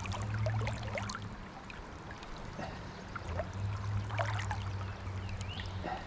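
Stream water running, with a few brief splashes and a low steady rumble underneath.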